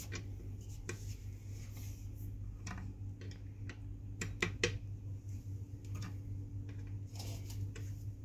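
Scattered light metallic clicks and ticks, about ten at uneven spacing, from an Allen key and bolts with washers being fitted through the tilt-mechanism plate into the seat of a Cougar Armor One X gaming chair. A steady low hum runs underneath.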